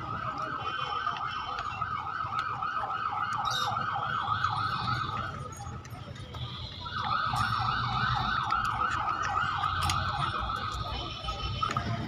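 An electronic siren sounding a fast yelp of about five pulses a second, with a fainter rising and falling wail above it. It breaks off about halfway through and starts again.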